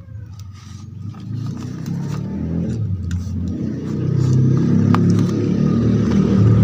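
Low engine rumble growing steadily louder, like a motor vehicle running close by.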